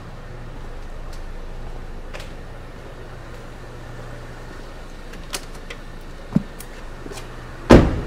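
Ford Transit Connect van door slammed shut: one heavy thud near the end, after a few faint clicks and knocks.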